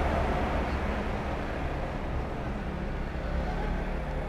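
Low rumble of passing street traffic, easing off slightly.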